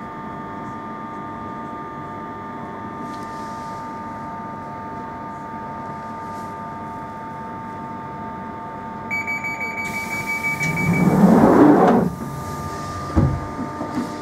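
1996 Tube Stock train standing at a platform, its equipment giving a steady hum. About nine seconds in, the door-closing warning sounds as rapid high beeps. The sliding doors then close with a loud rising rush and shut with a thump about a second later.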